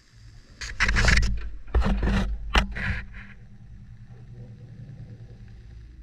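Laundry tumbling in a front-loading washing machine drum, heard from inside the drum: a quick run of loud thumps and rustling as wet clothes fall against and rub over the camera, then, from about halfway in, the drum turning with a steady low hum.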